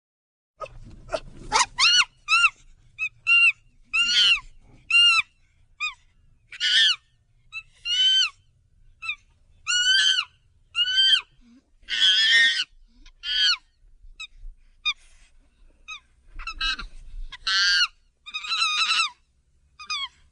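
Chimpanzee calling: a long run of short, high-pitched calls, each rising and falling in pitch, about one a second and sometimes in quick pairs.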